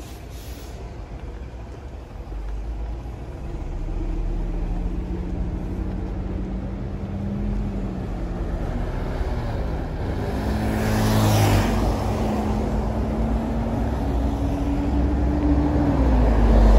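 City road traffic: engines running, with a steady low rumble and an engine hum that climbs slowly in pitch. A louder whoosh about eleven seconds in. Near the end it grows loudest as a city bus's engine comes right alongside.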